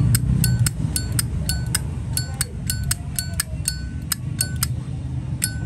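Zippo lighter lid flicked open and snapped shut over and over: a quick run of about twenty crisp metallic clicks, many with a short bright ring, stopping about three-quarters of the way through with one last click near the end. The lighter has its original cam, straightened by hand, and its lid sound is judged fine. A steady low hum runs underneath.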